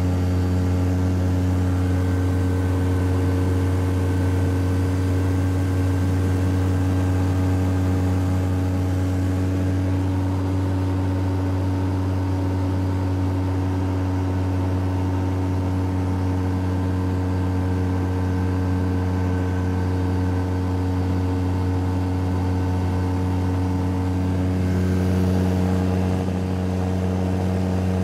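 Valday light aircraft's engine and propeller droning steadily in flight, heard from inside the cockpit.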